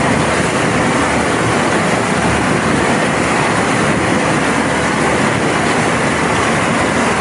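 Steady, loud rushing noise of a tour boat under way: its engine running, mixed with the rush of water and air.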